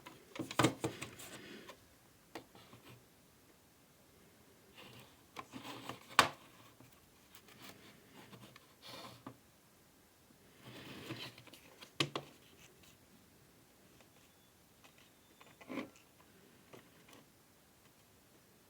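Packaging being handled during an unboxing: intermittent rustling of plastic and cardboard in short bursts, with a few sharp clicks about every six seconds, as of a case being opened or set down.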